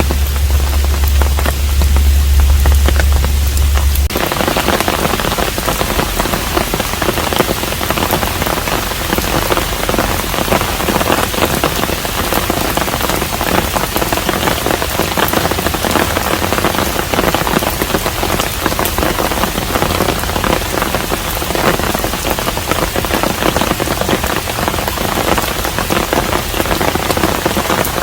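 Steady rain falling, an even hiss of drops. For the first four seconds a low steady hum sits under it; the hum then stops and the rain turns to a denser, closer patter.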